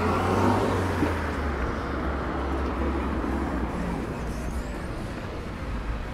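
A car driving past on a city street, its engine hum and tyre noise loudest about half a second in and then easing into steady street traffic noise.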